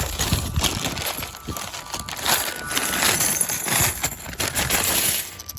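A bag of tokens being opened and the tokens tipped and shaken out, a dense clatter of many small clicks mixed with the bag crinkling.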